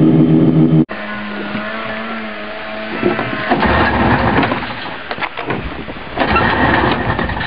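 1972 Rupp Nitro snowmobile's two-stroke engine idling steadily, cut off suddenly about a second in. After that, another snowmobile's engine runs as it rides across open snow, at first as a thinner steady tone, then rougher and louder from about halfway through.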